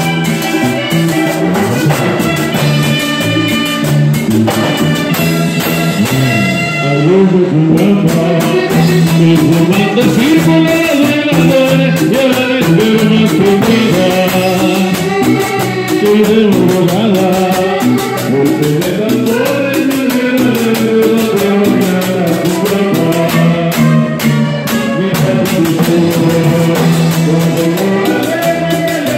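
Latin American dance music from a band, with singing over steady, fast percussion; the percussion thins out briefly about seven seconds in.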